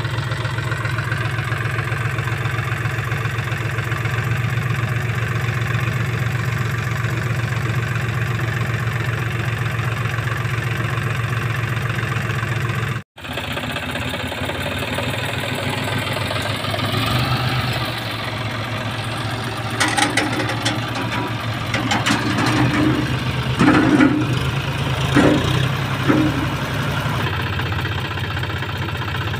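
Diesel tractor engine running steadily at low revs, labouring in sand. It cuts out for an instant about halfway, and several louder, uneven bursts come between about 20 and 26 seconds in.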